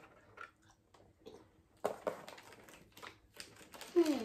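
Quiet crinkling and clicking of a chocolate bar's wrapper being handled, with chewing. A denser patch of crinkles comes about two seconds in, and a short falling vocal sound comes near the end.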